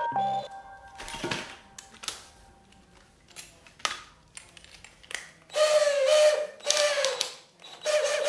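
Cordless drill motor spinning in three short bursts, each a steady whine, starting about five and a half seconds in. Before it, a few sharp knocks of handling over a quiet stretch.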